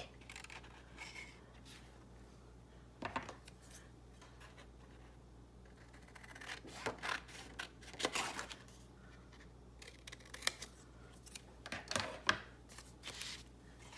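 Scissors cutting paper: scattered short snips in small groups, with quiet gaps between.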